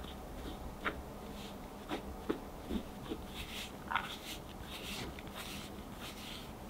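Fine-mesh metal sieve of cocoa powder being tapped and shaken over a glass bowl: a few light, sharp taps over the first four seconds, then short spells of soft scratchy rustling as the powder sifts through the mesh.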